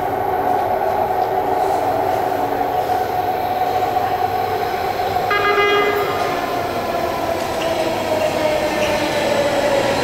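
BART train entering the subway station and slowing, its running noise carrying a high whine that slowly drops in pitch as it brakes. About five seconds in, a short horn toot sounds.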